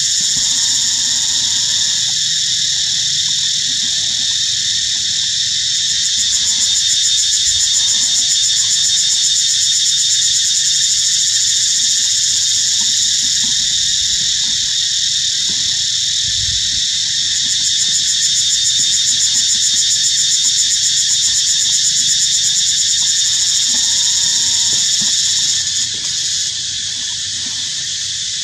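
Loud, steady high-pitched buzzing of an insect chorus in the trees, swelling a little in two stretches and easing slightly near the end.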